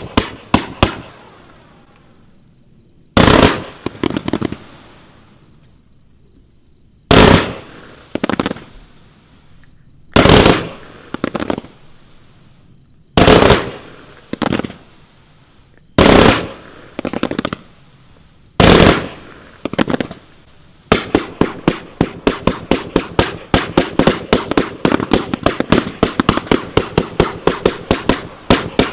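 Wolff 'Something Different' 200-shot fan-shaped compound firework cake firing. There are six single loud shots a few seconds apart, each trailing off in a scatter of smaller pops. Near the end it breaks into a rapid volley of about four shots a second.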